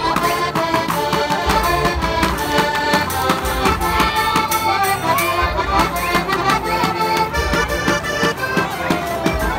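Two small accordions playing a lively folk dance tune, with a drum keeping a steady beat.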